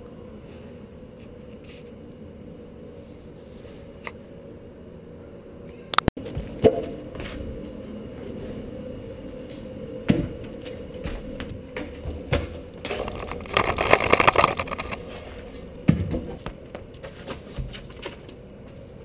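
Parkour landings and shoe scuffs on concrete and stone, heard through an action camera's own microphone. About six seconds in, after a steady quiet background, a series of sudden thuds and scrapes begins, including a loud scraping rush of about two seconds midway.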